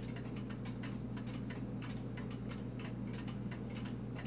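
Seth Thomas open-escapement mantle clock ticking steadily, several quick ticks a second, its freshly serviced movement running. A steady low hum sits underneath.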